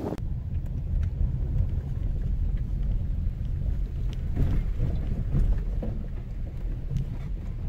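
Wind buffeting the microphone: a low, rumbling roar that swells and eases with the gusts.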